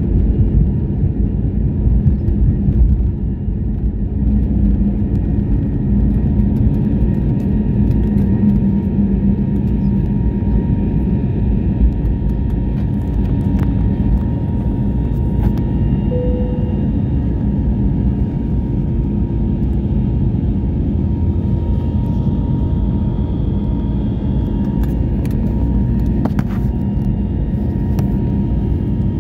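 Airliner jet engines at take-off thrust heard inside the cabin during lift-off and initial climb: a loud, steady low rumble with a faint steady whine above it, easing slightly about three seconds in.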